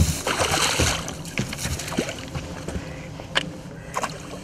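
Hooked zander splashing at the surface of the water as it is played in toward the landing net. There are several sharp splashes, with the loudest rush of splashing in the first second.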